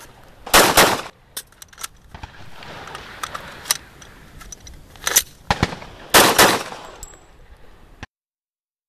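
Handgun shots on an outdoor firing range: quick strings of several shots about half a second in and again about six seconds in, with single shots between them. The sound cuts off suddenly about eight seconds in.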